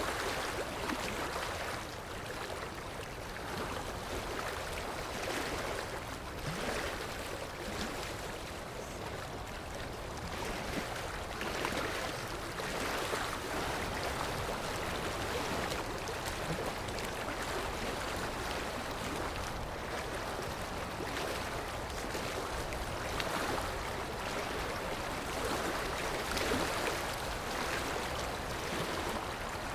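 Sea waves washing ashore: a steady rush of water that swells and eases every few seconds.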